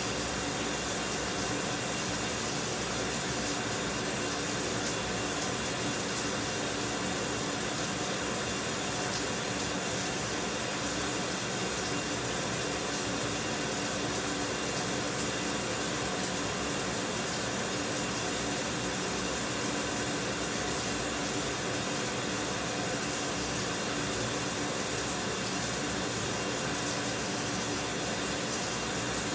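Shower running: a steady, unbroken spray of water.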